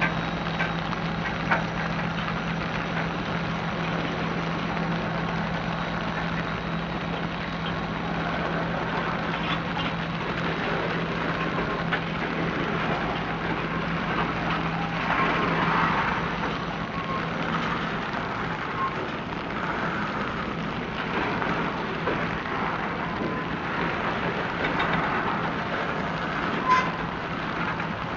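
Freight train of boxcars rolling past: a steady rumble and clatter of steel wheels on rail, with a few sharp clicks and one sharp clank near the end. A low steady diesel drone from the CSX GP30R and GP38-2 locomotives ahead runs under it and drops away about two-thirds of the way through.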